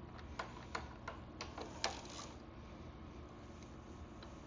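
A run of sharp metal clicks and knocks, about seven in the first two seconds and then a few faint ticks, from hand tools working a seized part freed with heat and penetrating oil.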